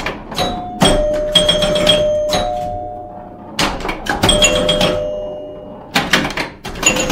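Metal pen panels and gates clanking as they are climbed over and stepped on: a string of irregular knocks, each leaving a ringing metallic tone that slowly dies away.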